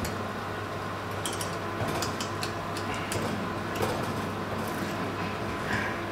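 Metal utensil clicking and scraping against an oven tray while fish is turned under a hot grill, several sharp ticks between about one and four seconds in, over a steady hum and hiss from the open oven.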